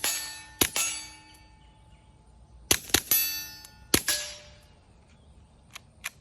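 Walther PPQ .22 pistol with a SilencerCo Sparrow suppressor firing about six shots at an uneven pace, with two fainter ones near the end. Each shot is a sharp crack followed by a metallic ring, and the suppressed reports are really quiet.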